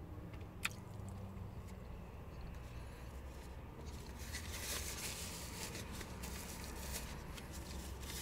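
Paper food wrapper rustling and crinkling as it is pulled out and handled, mostly in the second half, over a low steady hum. A single sharp click about a second in.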